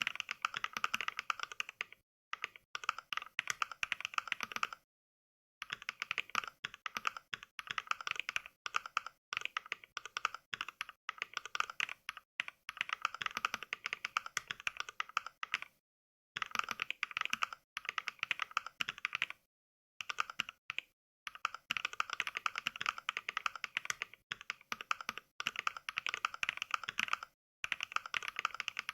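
Simulated mechanical-keyboard typing: Mechvibes software plays its NK Cream sample, modelled on NovelKeys Cream switches, for each keystroke instead of the real keyboard's sound. Fast runs of crisp clicks, several a second, are broken by short pauses of complete silence.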